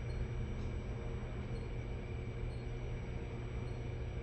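Yaskawa MH50-20 industrial robot arm moving through a run test: a steady low hum with a faint high steady tone and no knocks or clunks.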